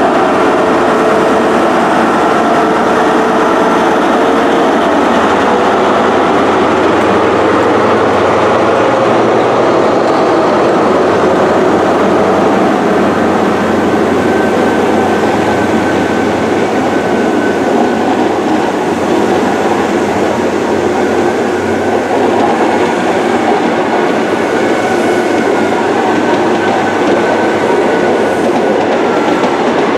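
InterCity 125 high-speed train passing slowly: the Class 43 power car's diesel engine hum fades within the first few seconds, leaving the steady rumble of the Mark 3 coaches' wheels on the rails with some clickety-clack and a faint wheel squeal later on.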